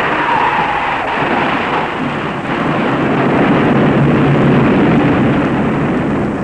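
Hollow jet regulating valve at the foot of a dam discharging under test at normal operating conditions: a loud, steady rush of spraying water, with a low hum underneath.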